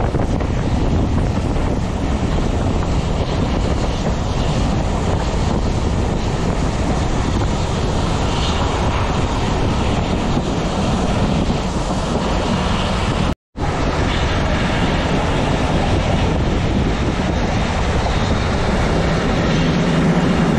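Loud steady rushing noise of wind on the microphone over a low rumble, broken by a momentary cut to silence about thirteen seconds in.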